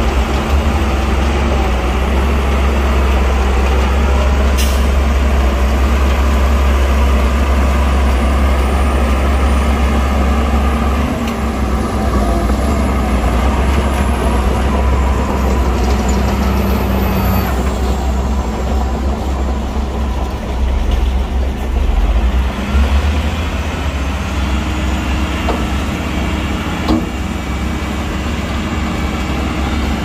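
Heavy diesel earthmoving machinery running with a steady, loud low rumble, with a sharp click about four seconds in and another near the end.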